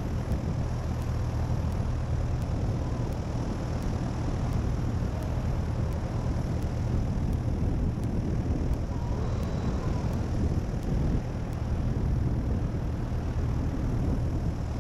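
Cessna 172's piston engine and propeller running at reduced power on final approach, a steady low drone with airflow noise.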